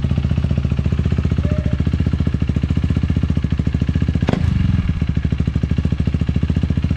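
A freshly rebuilt KTM Duke 390's single-cylinder engine idling with a steady, even pulse. One sharp click comes about four seconds in, with a brief change in the engine note just after it.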